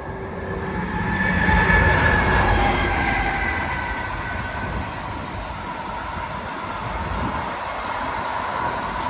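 Freight train passing at speed. The locomotive's whine falls in pitch as it goes by, loudest about two seconds in. Then comes the steady rumble and rattle of the wagons carrying semi-trailers rolling past.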